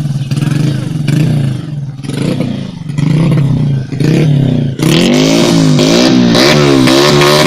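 Modified underbone (step-through) motorcycle engine being revved: uneven throttle blips for the first few seconds, then from about five seconds in held at higher revs, the pitch rising and falling two or three times a second as the throttle is worked.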